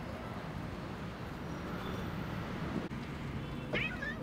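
Outdoor ambience: a steady low rumble, with a brief high chirping call near the end.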